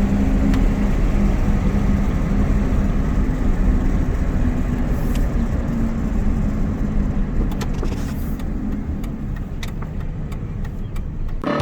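Tractor engine running steadily, growing somewhat quieter over the last few seconds.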